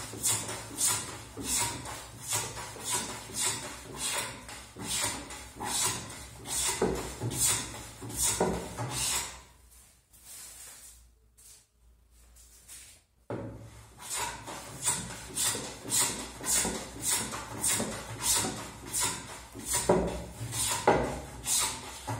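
Metal hand plane cutting shavings from the edge of a wooden panel in quick, rhythmic push strokes, about two to three a second. The strokes pause for a few seconds midway and then start again.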